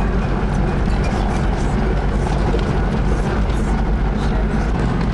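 Engine and road noise of a moving vehicle heard from inside it, a steady low drone with a rushing hiss over it.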